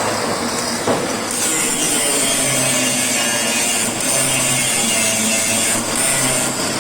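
Argon-shielded TIG welding arc, set at about 120 amps, burning with a steady hiss while a corner joint is welded freehand.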